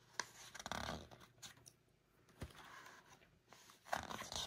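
Faint rustling and soft taps of hands on the paper pages of a picture book being held and handled, in short scattered bursts.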